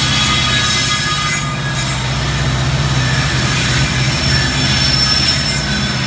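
Norfolk Southern SD70ACe diesel-electric locomotives passing close by, their EMD two-stroke diesel engines running with a steady low drone. Over it come the clatter and hiss of the wheels on the rails and faint high wheel squeals.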